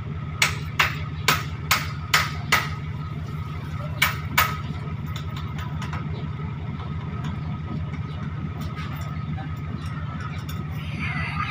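A diesel lorry's engine running steadily, with sharp slaps of hands on its wooden tailgate: six quick ones in the first three seconds, then two more about four seconds in.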